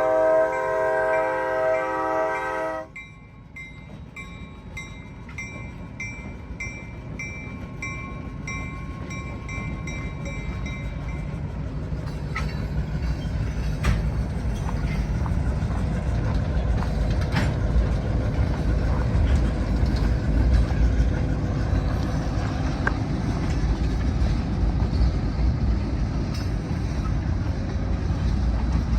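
EMD SW8 switcher locomotive's air horn sounding a steady chord that cuts off about three seconds in. Then comes a bell ringing about twice a second, while a low diesel rumble grows steadily louder as the locomotive and its tank cars draw near and pass, with scattered clicks of wheels over the rails.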